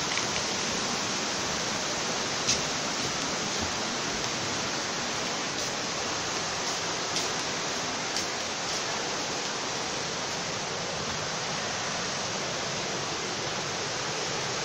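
Water from small waterfalls on a rocky creek pouring into a pool: a steady, even rush, with a few faint clicks over it.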